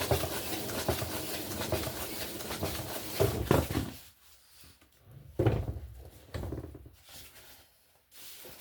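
Flat-faced hair dryer blowing air across wet paint: a long rush of air with a low motor hum, then after about four seconds shorter on-and-off bursts as it is aimed in passes.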